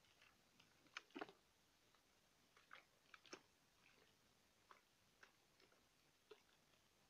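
Plastic spray bottle handled close to the microphone: about ten light, irregularly spaced clicks and taps, the loudest about a second in and just after three seconds.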